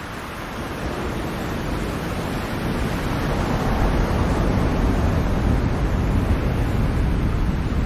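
Ocean waves washing in, the surf growing louder over the first few seconds and then holding steady.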